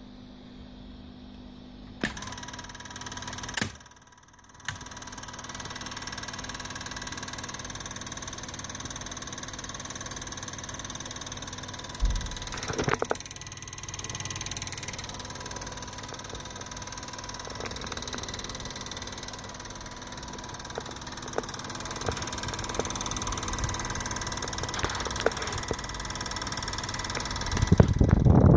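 8mm film projector running: its motor and film transport make a steady mechanical whir with several fixed tones. It starts with a click about two seconds in, cuts out briefly, then runs on steadily, and a louder low rumble comes in near the end.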